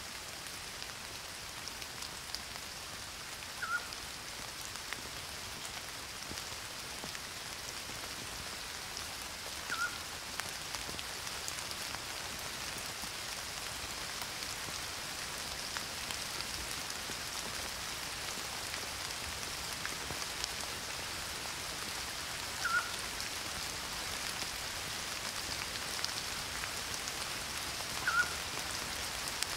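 Steady rain falling on garden foliage, an even hiss, with a short chirp-like sound standing out above it four times.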